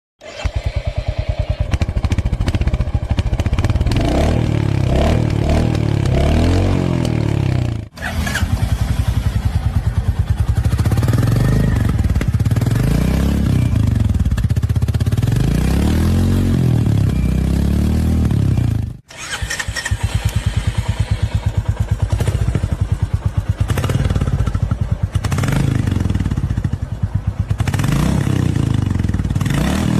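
Royal Enfield motorcycle engines running loud with a quick, even beat, blipped several times so the pitch rises and falls. It comes as three separate recordings cut together, with abrupt breaks about 8 and 19 seconds in.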